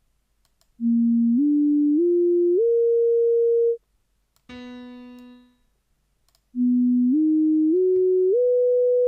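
Two computer-generated pure sine tones, each an ascending major-triad arpeggio: four steps (root, third, fifth, octave), the top note held longest. The first climbs from A#3 to A#4 and the second from B3 to B4. Between them comes one short piano-like note that fades away.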